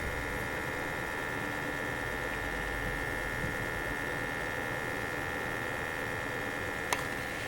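Homemade USB box fan built from 120 mm computer fans, running steadily: an even whir of moving air with a faint steady high tone.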